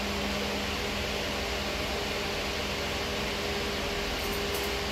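Steady fan whir: an even hiss with a low hum under it.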